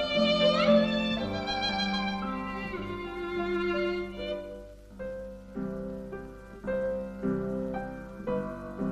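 Instrumental film music led by a violin: held notes with vibrato and a quick upward slide about half a second in, then a passage of separate short notes.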